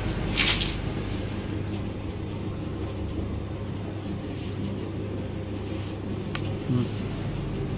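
A steady low hum, with a short rustling swish about half a second in and a faint click a little after six seconds.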